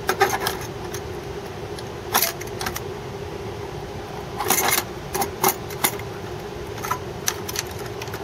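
Metal CPU heatsink and its wire retaining clips being handled and set down onto a server motherboard: irregular metallic clicks and short clatters, the loudest clusters about two seconds in and midway, over a steady low hum.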